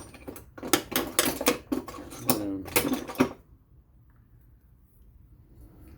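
Hard tools and bits clattering and clinking as they are rummaged through in search of a star (Torx) bit: a busy run of sharp clicks and rattles that stops about three seconds in.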